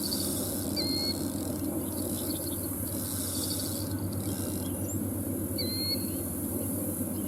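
Outdoor ambience of insects giving short, pulsing high trills again and again, with a bird calling two short whistled notes, over a steady low rumble.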